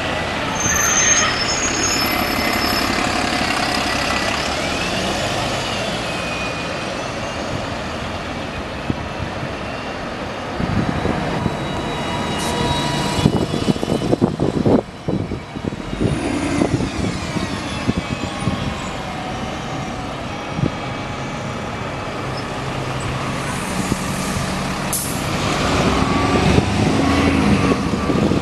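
Diesel buses idling and pulling away in city traffic, with a whine that rises and falls in the first few seconds, a few knocks midway and a short air-brake hiss about 25 seconds in.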